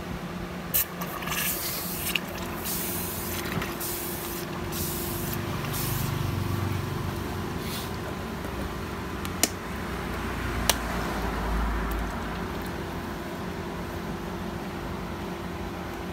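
Titanium bolt held in chopsticks and dipped into a tub of liquid: a string of short hissing, splashing bursts over the first eight seconds, then two sharp clicks, over a steady low hum.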